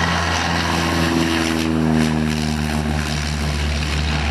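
Light propeller aircraft's piston engine droning as it passes, its pitch sliding slightly lower from about a second in, over the rumble of strong wind on the microphone.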